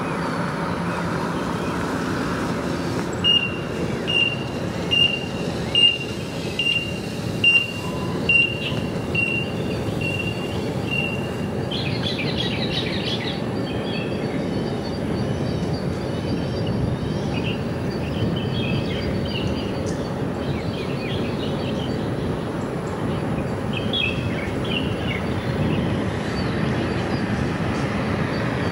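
A car driving on an open road, its tyre and road noise steady throughout. About three seconds in, a high beep starts repeating a little faster than once a second and stops after about eight seconds. After that, birds chirp a few times.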